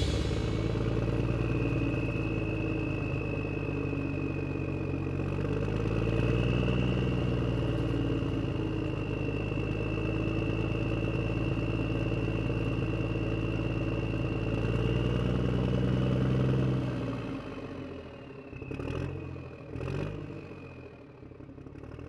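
RC model John Deere 9620 4x4 tractor driving, a steady high whine over a low hum that rises and falls in pitch with its speed. It quietens about three-quarters of the way through, with two short knocks near the end.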